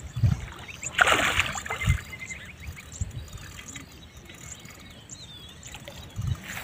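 Water splashing at the bank as a hooked carp is played in close to the landing net, loudest about a second in, with short low wind gusts on the microphone and a few bird chirps.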